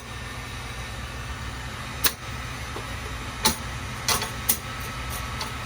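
Steady low mechanical hum with a handful of sharp clicks or knocks over it.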